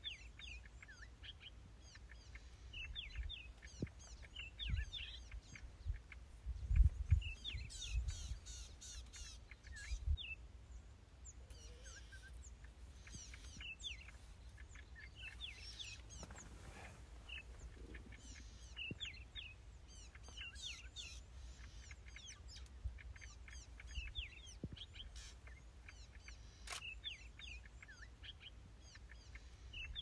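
Many small birds chirping and calling in short, repeated notes, with a low rumble about a quarter of the way in that is the loudest sound and one sharp click near the end.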